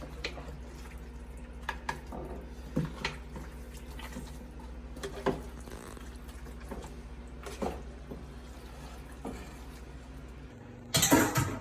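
Thick, saucy macaroni and cheese being dumped and scraped from a pot into a casserole dish: wet plops of the gooey pasta and scattered light knocks of a utensil against the cookware, with a louder clatter near the end.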